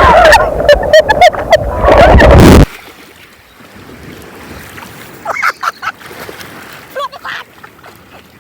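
Loud splashing of sea water and surf, overloading the microphone, with a voice calling out over it. It cuts off suddenly under three seconds in, leaving a faint background with a few distant voices.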